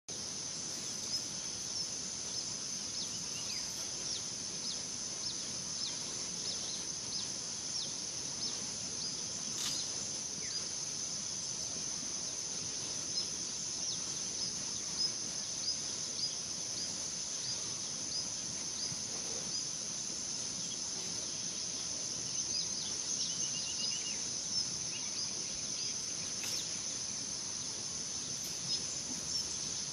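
Tropical forest ambience: a steady, high insect drone with many short bird chirps over it and a brief bird trill about two-thirds of the way through.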